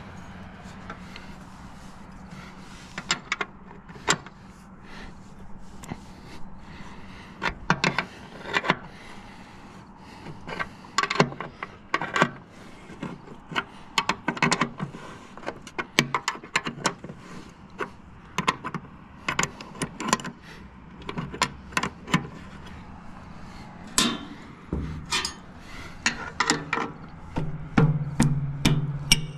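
Irregular metallic clicks and clinks of a wrench being fitted to and turned on bolts on a grain conveyor's steel head housing, with a faint steady hum underneath.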